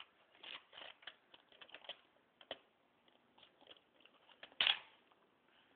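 Irregular small clicks and taps of a baby handling and chewing a plastic teething toy, with one louder bump near the end.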